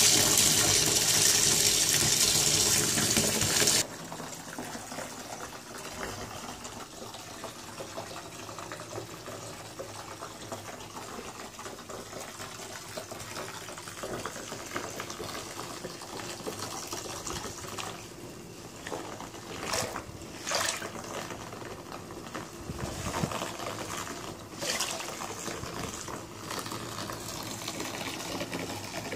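Bath tap water pouring through a metal sieve into foamy bathwater, stopping abruptly about four seconds in. After that there are only faint water sounds, with a few brief louder splashes later on.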